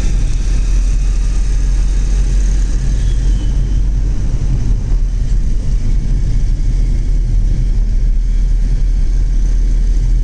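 Steady low rumble of a car on the move, heard from inside its cabin: engine and tyre noise.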